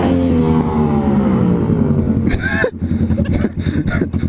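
A Harley-Davidson Dyna's air-cooled V-twin engine, its pitch falling steadily as the throttle closes and the bike slows. After a brief high whine it settles into a low, uneven, lumpy idle.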